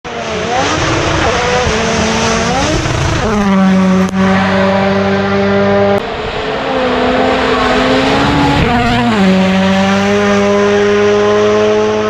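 Rally1 rally car's turbocharged 1.6-litre four-cylinder engine at high revs: the pitch climbs and steps down several times through gear changes, drops at about three seconds, then holds high and steady. The sound breaks abruptly about four and six seconds in.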